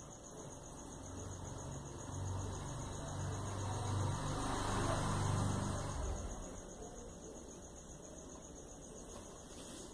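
Small terrier-type dog growling low, building over a few seconds and stopping about six seconds in.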